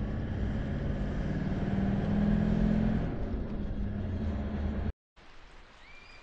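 4WD engine running as it drives slowly, with a steady drone that swells a little about two seconds in. It cuts off abruptly about five seconds in, leaving a faint steady hiss with one short high chirp.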